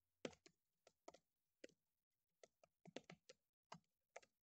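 Faint typing on a computer keyboard: a dozen or so separate keystrokes at an uneven pace.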